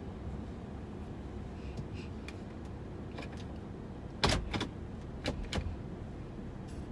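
Steady low rumble inside a minivan's cabin, with a quick cluster of sharp clicks about four seconds in and two more clicks about a second later.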